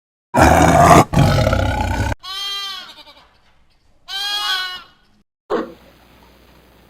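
Animal calls: a loud, harsh, rough call in two parts, then two short pitched cries about two seconds apart, each rising and falling in pitch.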